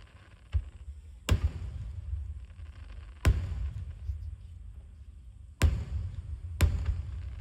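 Aerial firework shells bursting: a faint bang, then four loud bangs a second or two apart, each trailing off in a low rolling rumble.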